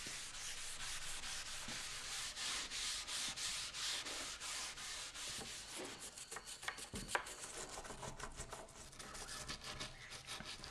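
Fine steel wool rubbing oil into a camphor laurel wood slab, in rhythmic back-and-forth strokes with a dry, hissing scrub. The steel wool polishes the timber as it works the oil in.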